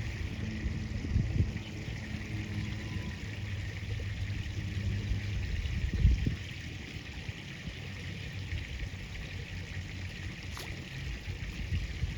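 River water flowing and trickling steadily, with a few low thumps, the loudest about six seconds in.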